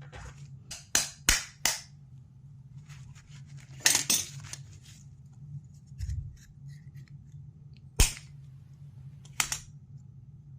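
Sharp plastic snaps and clicks from an evap canister purge valve housing being pried apart by hand, about seven separate cracks with the loudest near four seconds and eight seconds in.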